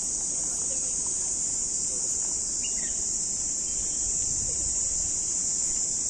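Insects in the park vegetation chirring in a steady, high-pitched drone, with a few faint bird chirps about two and a half seconds in.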